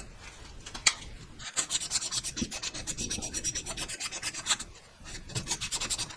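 Copper pipe being sanded smooth by hand with abrasive: quick, rhythmic back-and-forth rubbing strokes, several a second, in runs broken by short pauses. This is the cleaning of the pipe end before a valve is fitted. There is one sharp tap about a second in.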